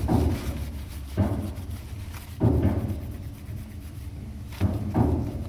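Irregular rubbing strokes, about one a second, as the parts of a TV remote control are scrubbed clean with rubbing alcohol.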